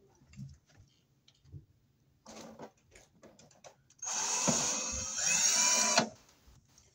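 Cordless drill/driver driving the mounting screws of an electrical receptacle into its metal box: a short spurt a little over two seconds in, then a louder run of about two seconds near the end that stops sharply.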